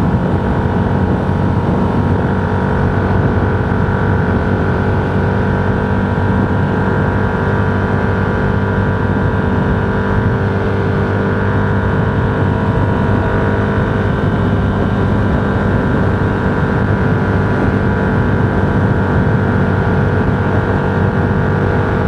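Steady engine and road noise heard inside a vehicle cruising at constant speed, an even drone with no changes.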